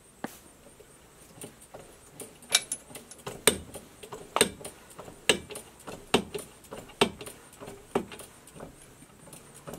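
Hydraulic jack foot pump on a strut spring compressor being pumped to compress a coilover spring: a sharp click with each stroke, about once a second, with lighter ticks between.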